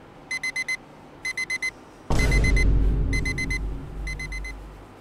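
Digital alarm clock beeping in quick groups of four, one group about every second. A louder low rumble comes in about two seconds in and fades away near the end.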